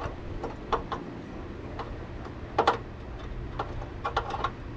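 Irregular clicks and light knocks of hand tools and parts being handled in a car's engine bay during a battery change, about ten in all, the sharpest about two and a half seconds in and a quick run of them near the end.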